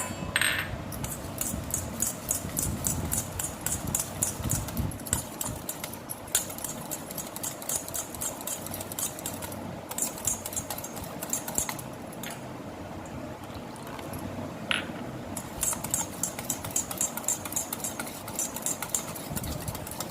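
Gram-flour (besan) batter being beaten in a bowl as water is mixed in: quick rhythmic stirring strokes, about five a second, in several runs with short pauses between them.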